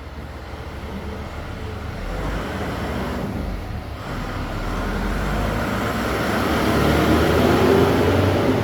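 A motor vehicle engine running, growing steadily louder toward the end.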